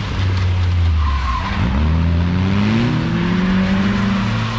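A drifting car's engine revs, rising in pitch from about a second and a half in, while its tyres skid and squeal on wet asphalt.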